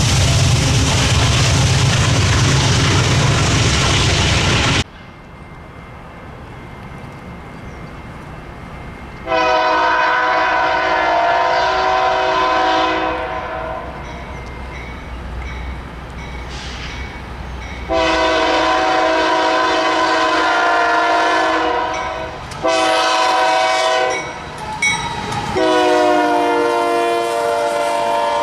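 Loud rushing noise of a train that cuts off abruptly about five seconds in, then a low rumble. A diesel locomotive's multi-chime air horn then sounds the grade-crossing pattern of long, long, short, long: the train approaching a road crossing.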